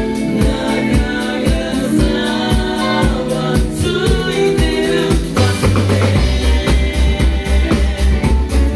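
Live band playing a song: a singer over drum kit and bass with a steady beat.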